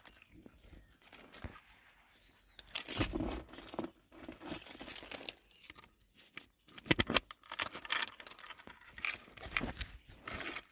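A bunch of keys jangling and clinking in several short bursts as a key is handled and worked into a door lock cylinder.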